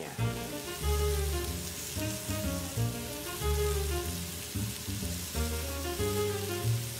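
Banana caramel sauce of butter, brown sugar and cream sizzling and bubbling in a frying pan as it is stirred with a silicone spatula, under background music with a moving bass line.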